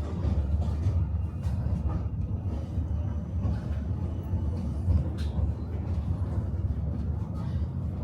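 Tram running along its rails, heard from on board: a steady low rumble of wheels and running gear, with occasional faint clicks.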